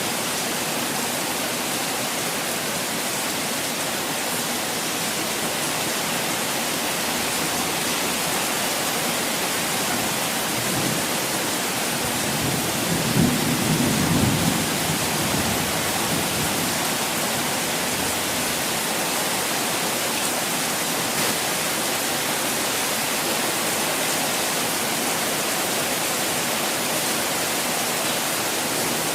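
Steady rush of falling water, with a low rumble for a couple of seconds about halfway through.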